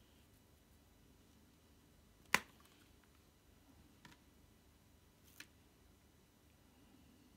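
Sharp clicks of a thin metal tool against the plastic bottom case of a Packard Bell Dot S netbook. There is one loud click about two seconds in and two fainter ones around four and five and a half seconds.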